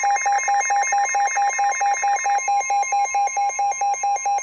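Weather radio receiver's alert alarm beeping rapidly and evenly, over the steady NOAA Weather Radio warning alarm tone that sets it off, signalling that a warning is about to be read.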